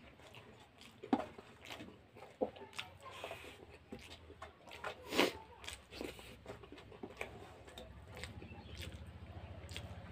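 A person eating rice and curry by hand from a steel plate: scattered wet smacks and clicks of chewing and of fingers working the food on the plate, the sharpest about five seconds in, over a low steady hum.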